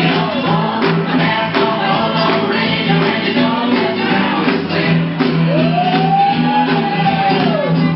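Loud song with a lead voice and band. Near the end the singer holds one long note for about two seconds.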